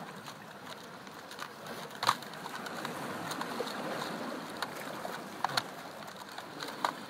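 Clicks and light rattles of small plastic tackle as a clear plastic tackle box is searched through by hand, the loudest click about two seconds in and another near the end. Under them a steady wash of sea water.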